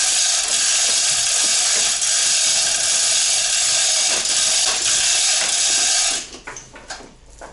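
Powered hoist running steadily as the engine is lifted, cutting off abruptly about six seconds in.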